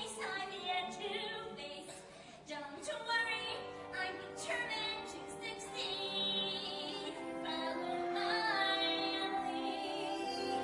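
A woman singing a musical-theatre song with vibrato over instrumental accompaniment.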